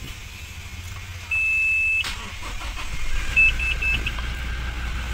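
A 2018 Toyota Fortuner's 2.4-litre four-cylinder turbodiesel being started: a steady beep, then a sharp click about two seconds in as the engine cranks and catches, settling into a low idle. A quick run of four short dashboard chimes sounds as it settles.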